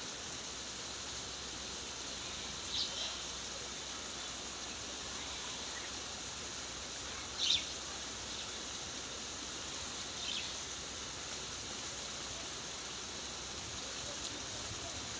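Steady rushing of flowing water, with three short high bird chirps: about three seconds in, the loudest at about seven and a half seconds, and one at about ten seconds.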